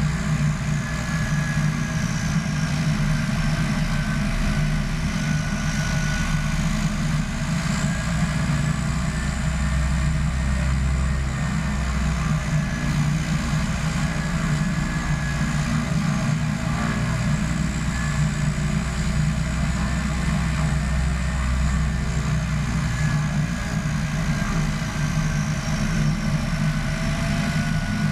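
Turboprop engines and propellers of a de Havilland Canada DHC-6 Twin Otter floatplane running steadily at low taxi power, heard from under the wing. The deep drone carries a high turbine whine that wavers slowly up and down in pitch.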